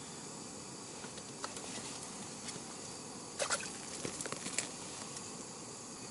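Faint steady hiss, with a short run of light clicks and taps about three and a half seconds in as a small roach is struck and swung up out of an ice hole on a short winter ice-fishing rod.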